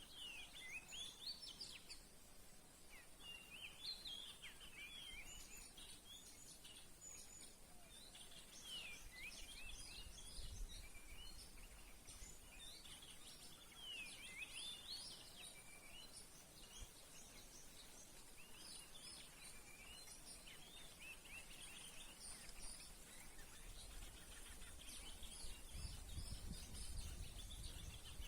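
Faint songbird calls: many short chirps and sweeping whistled phrases in quick runs, over a steady high hiss. A low rumble comes in near the end.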